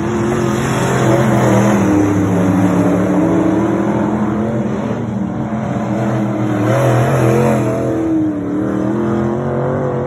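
Race car engines running laps, more than one heard at once, their pitch rising and falling as they rev up and ease off.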